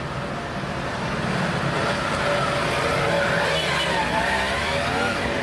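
Road traffic noise, with a motor vehicle engine passing and its pitch wavering in the second half.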